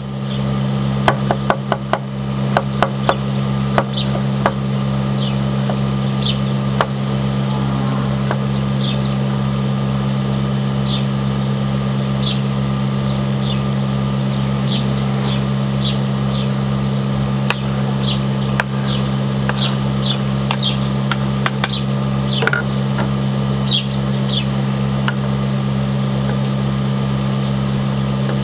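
Hand-forged 21 cm kitchen knife chopping carrot on a wooden cutting board: a quick run of knocks in the first few seconds, then scattered single cuts. A steady low hum with a regular low throb runs underneath and is the loudest thing throughout.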